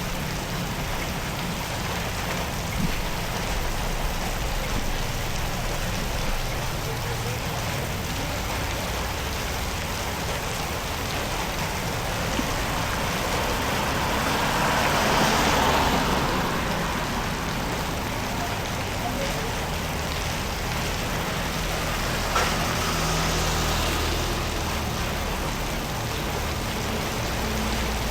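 Steady noise of rain and running water on a flooded road. About halfway through, a vehicle passes, swelling and fading over a few seconds, and a smaller swell follows later.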